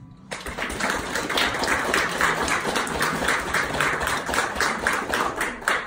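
A small audience applauding, starting suddenly a moment in.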